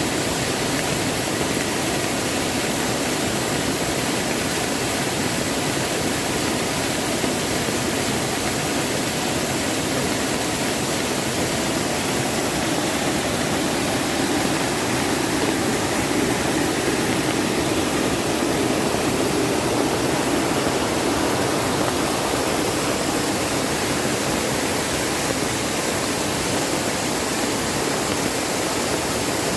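Mountain valley stream rushing steadily, growing slightly fuller for a few seconds around the middle.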